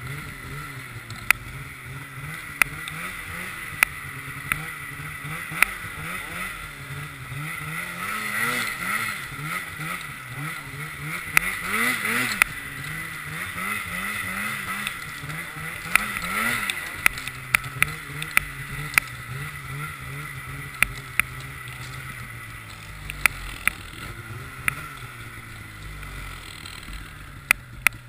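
Polaris snowmobile engine running under way, its pitch rising and falling again and again with the throttle, loudest through the middle. Sharp clicks come now and then over it.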